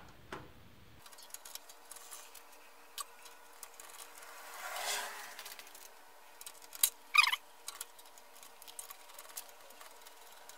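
Light scattered clicks and scratches of small metal hardware being handled while a case fan assembly is fitted, with a short louder rattle about seven seconds in as small parts are picked from a cup.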